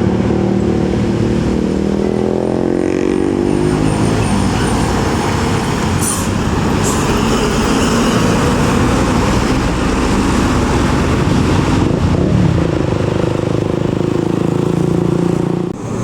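Diesel tour bus engines passing close by on an uphill bend, one engine note falling away in the first few seconds and another rising and holding about twelve seconds in, with two short hisses around six and seven seconds in.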